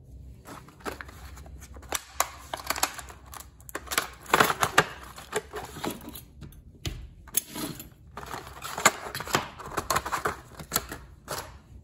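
Small metal sleeves and adapters clicking and knocking together as they are handled on a workbench, with rustling of plastic packaging.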